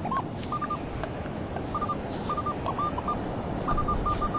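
Minelab Manticore metal detector giving short beeps of one mid pitch, singly and in quick clusters of two to four, as it is swept over a buried target. The tone marks a target in the pull-tab range, which proves to be an aluminium pull tab. A steady hiss runs underneath.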